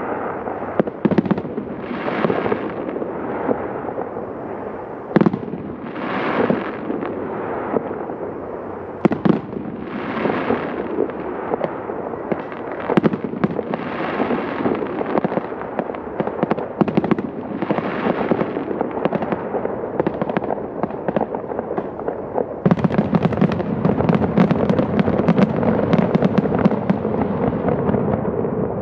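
Aerial fireworks bursting: sharp bangs every second or two with rumbling between them, then, about three-quarters of the way through, a dense volley of rapid bangs and crackling that is the loudest part.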